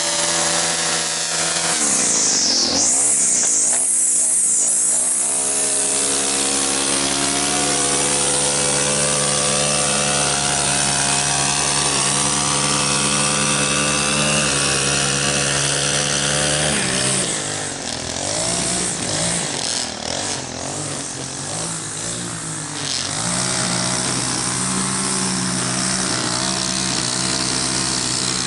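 Gas string trimmer engine running at working speed. Its pitch dips and rises as the throttle is eased and opened a couple of seconds in, then holds steady. From about 17 to 23 seconds in it runs lower and uneven before picking back up.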